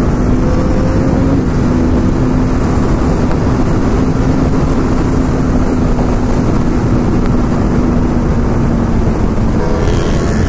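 Honda CBR1000RR sport bike's inline-four engine running at a steady cruising speed, under loud wind rush on the camera microphone. The engine note sags slightly in pitch, and the sound shifts a little near the end.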